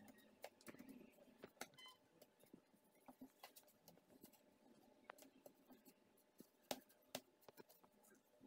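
Faint, scattered clicks and light taps of hands and tools working on an iMac's case, with a couple of sharper clicks near the end.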